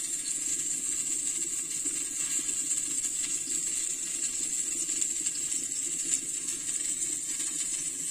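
Eggplant halves sizzling in hot oil in a frying pan: a steady hiss with fine crackles, over a steady low hum.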